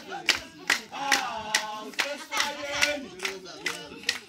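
A group singing together to steady hand-clapping, about two claps a second.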